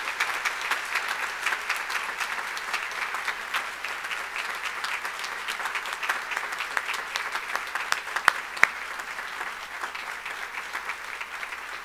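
Audience applauding: many hands clapping densely, with a few sharper single claps standing out about two-thirds of the way through, easing slightly near the end.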